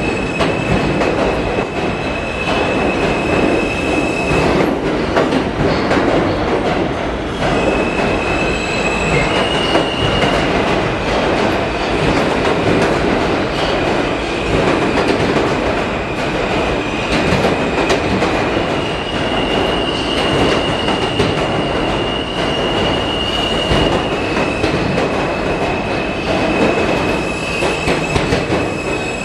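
R160 New York City subway train running into an underground station and slowing, with a steady loud rumble of steel wheels on rail. A high thin squeal rides on top, breaking off and coming back several times.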